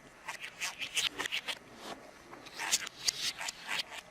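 Budgerigar chattering: a rapid, uneven run of short clicks and chirps.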